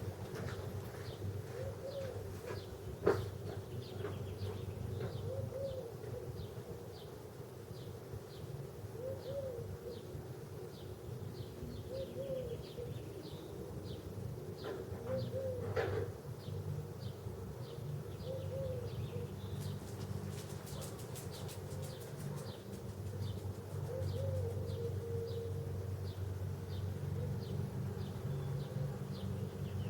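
A bird's short cooing calls, repeated every few seconds, over a steady low hum, with a sharp click about 3 seconds in and another about 16 seconds in.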